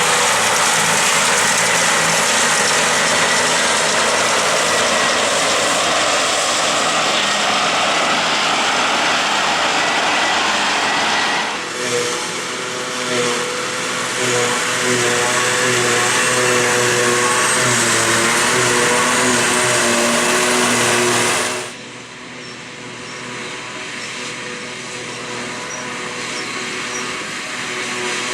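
Heavy farm machinery working during grass silage harvesting: loud engines with a dense rushing noise. The sound changes abruptly about twelve seconds in, with a steadier engine note coming through, and again about twenty-two seconds in, where it drops to a quieter running engine.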